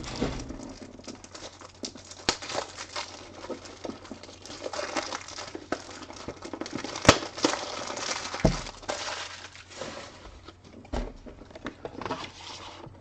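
Trading cards and their wrapping being handled: rustling and crinkling with many small clicks, a sharp click about seven seconds in and a low thump about a second later.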